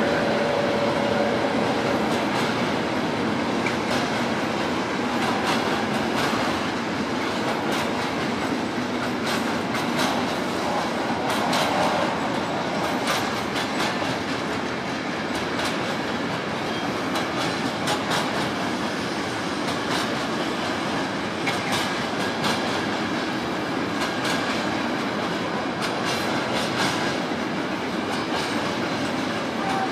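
A long intermodal freight train of container wagons rolls past at steady speed: a continuous rumble with many irregular clicks of wheels passing over rail joints. During the first few seconds, a rake of passenger coaches passing as well adds to it.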